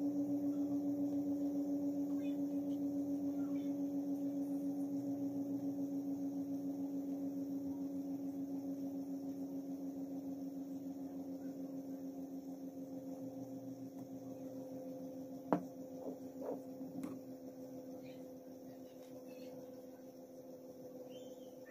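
One long, low ringing tone with a slow wavering pulse, fading gradually over the whole stretch, from a struck gong-like instrument in ambient background music. A few faint clicks come about three quarters of the way through.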